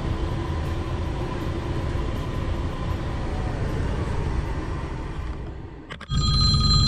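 DAF XF truck's diesel engine running, heard inside the cab as an even rumble. About six seconds in, a mobile phone ringtone starts suddenly, several steady high tones over a deeper engine hum.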